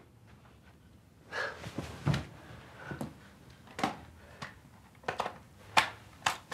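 A run of sharp knocks and clatters, about eight in the space of five seconds, with some rustling between: objects being handled and set down.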